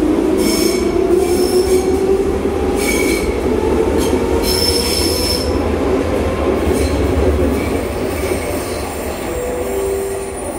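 Athens Metro Line 1 train running through the station: the motor whine rises slowly in pitch as the train picks up speed, over a steady rumble of the wheels, and the wheels squeal in short high bursts three times in the first half. Near the end a short steady tone sounds.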